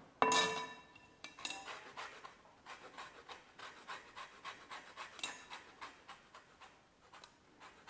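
Lemon zest being grated on a handheld metal grater over a glass bowl: quick rhythmic rasping strokes, about three a second. Near the start there is a single ringing clink of the grater against the glass.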